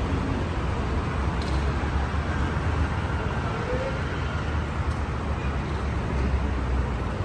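Steady city street traffic noise with a deep, even rumble.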